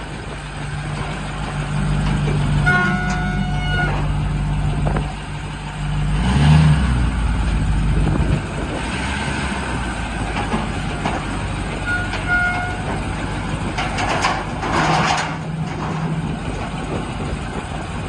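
Diesel engine of a lifted Ford Super Duty pickup, the uploader's 6.4 Powerstroke, running as the truck is driven down a flatbed trailer's ramps, with a brief rev about six seconds in. Short beeping tones sound twice, around three seconds in and again near twelve seconds.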